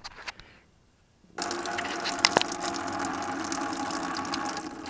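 Hot engine coolant starting to pour from a 2009 Prius's coolant heat storage tank into a plastic bucket: a few faint clicks, then about a second and a half in a sudden steady gushing splash that keeps running.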